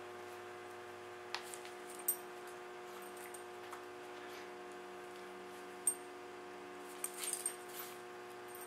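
A small dog's metal collar tag jingling in a few brief tinkles as the dog moves, with a cluster of them near the end, over a steady faint hum.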